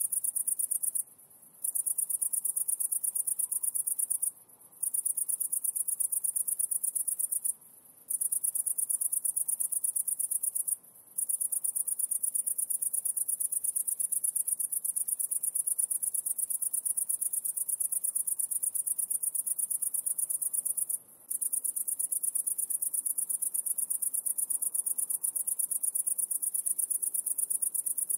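High, rapidly pulsing insect trill, continuous except for five brief breaks of about half a second.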